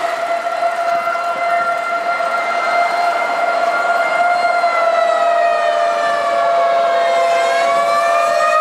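Fire engine sirens on an emergency run: two siren tones sounding together and held steady, one sliding lower in pitch and climbing back up near the end.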